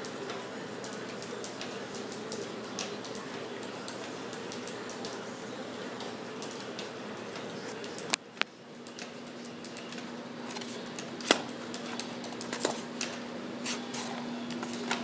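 Handling noise from a plastic airsoft pistol held in the hand: scattered clicks and knocks, with a few sharper clicks about eight and eleven seconds in, over a steady background hum.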